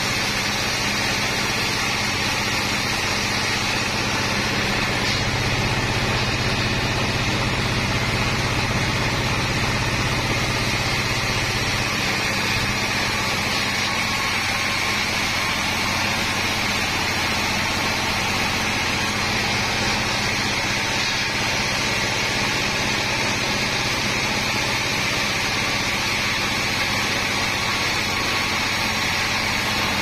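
Large sawmill band saw running steadily as its blade cuts lengthwise through a long timber beam, with a constant machine hum underneath.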